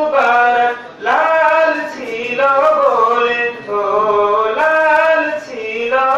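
A young man's solo voice chanting Islamic devotional verse melodically and unaccompanied into a microphone, with long ornamented held notes and short breaths between phrases.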